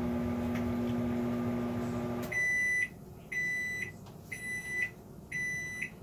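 Microwave oven running with a steady hum that stops about two seconds in, followed by four high beeps about a second apart: the end-of-cooking signal.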